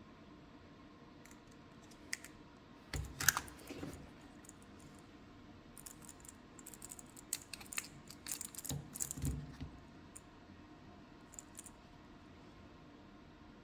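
Hands working on small hard parts: scattered light clicks and taps, with two bursts of louder knocks and rattling about three seconds in and again around eight to nine seconds in.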